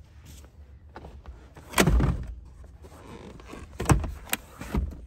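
Rear fold-down seat of a 2018 Mitsubishi Outlander being moved and latched: one heavy thump about two seconds in, then three sharp clicks and knocks of the seat mechanism near the end.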